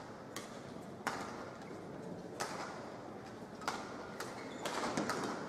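Badminton racket strikes on a shuttlecock in a rally: sharp smacks about every second and a bit, with a quick run of smaller taps near the end, over a steady background hiss.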